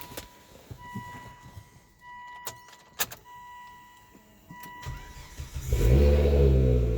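A Volvo S60R's turbocharged five-cylinder engine being started: a car's warning chime beeps about once a second, two sharp clicks come just before halfway, then the starter cranks and the engine catches near the end, flaring up loud and settling toward idle.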